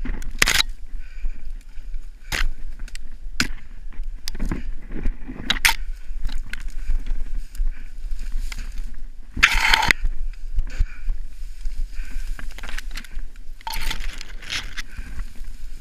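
Dry grass stalks rustling and crackling as they brush and scrape against a body-worn camera pushing through them, with a steady low handling rumble; a louder sweep of rustling comes about halfway through.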